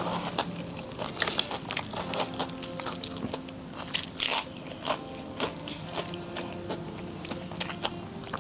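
A person biting and chewing crunchy food, a string of crisp crunches with the loudest about four seconds in.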